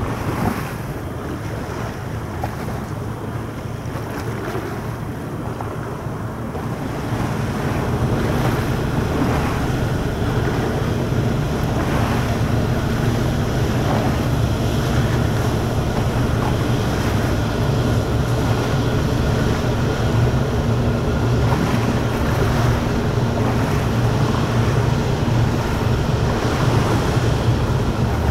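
Steady low rumble of the cruise ship SuperStar Virgo passing close by, mixed with wind noise on the microphone and water, growing louder about seven seconds in.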